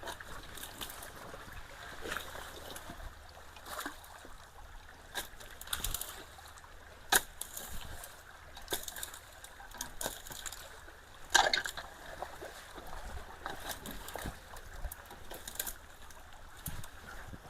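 Creek water running and trickling at a clogged culvert, with irregular splashes and sharp knocks, about one every second or two, loudest about seven and eleven seconds in, as debris is worked out of the water.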